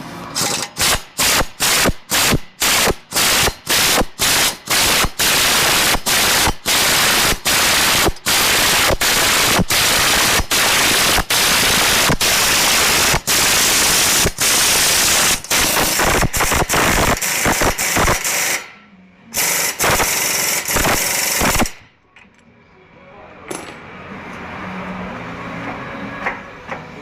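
Pneumatic workshop tool, loud, worked in short trigger bursts of about two or three a second at first, then in longer runs. It stops about eighteen seconds in, runs once more for about two seconds, and then only a quieter background noise remains.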